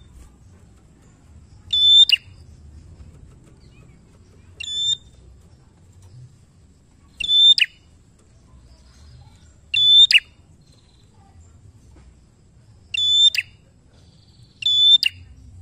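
Prenjak, a small tailorbird-type warbler, giving short, sharp, high ringing calls, six in all, one every two to three seconds.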